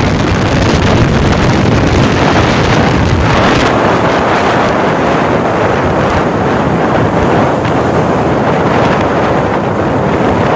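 Loud, steady wind rush buffeting the microphone of a phone carried on a moving motorcycle, with the ride's road and engine noise blended underneath.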